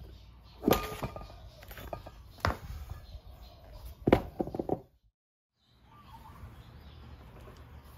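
Knocks and clatter of a scooter tire being forced onto its wheel rim by hand and foot: a sharp knock about a second in, another midway, and a quick run of knocks just past four seconds. The sound cuts off abruptly just after five seconds, and a faint steady background follows.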